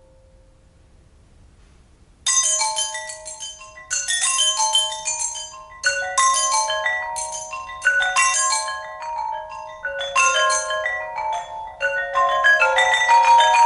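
Tuned metal pipes struck with mallets by three players. After about two seconds of near quiet, fast interlocking runs of bright ringing notes come in. They start afresh roughly every two seconds and grow denser toward the end.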